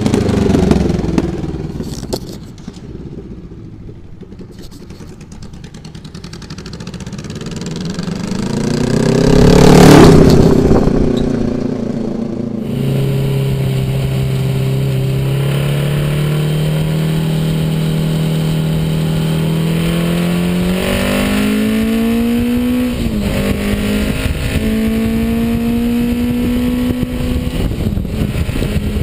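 Honda GL1200 Gold Wing's flat-four engine: first a pass-by that swells to its loudest about ten seconds in and drops in pitch as it goes past. Then the engine is heard while riding, its note climbing slowly, rising faster and briefly dipping a little after twenty seconds, then holding steady, with wind noise.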